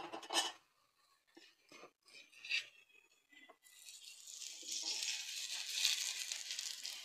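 A few light clicks of a spoon and spatula on the pan, then, about halfway in, oil sizzling in a steady hiss as it is spread with a spoon over a stuffed radish paratha frying on a hot tawa.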